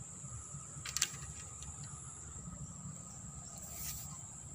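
Insects trilling steadily at a high pitch over a low outdoor rumble, with one faint click about a second in.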